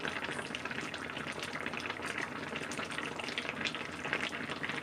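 Sukiyaki broth simmering in a pot on a gas stove: a steady fine bubbling crackle with many small pops.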